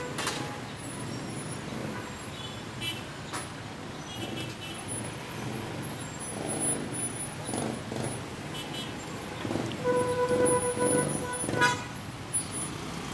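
Road traffic running past, with a vehicle horn sounding one steady note for about a second and a half near the end.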